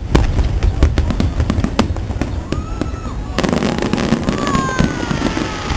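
Aerial fireworks display going off in a rapid string of bangs and crackles. About three and a half seconds in it turns to a denser crackling hiss with falling whistles.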